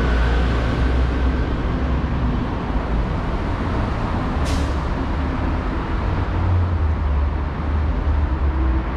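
Road traffic rumbling steadily, with a short sharp hiss about halfway through.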